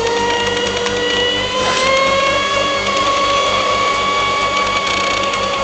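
Feigao 540 XL brushless electric motor of a mono-hull RC racing boat running at high speed: a steady high-pitched whine that climbs slightly in pitch about two seconds in.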